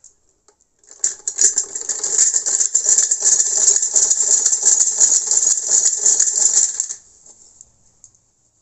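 Hand-cranked Brother sewing machine stitching fabric, a fast, even clatter of needle strokes as the handle is turned. It starts about a second in and stops shortly before the end.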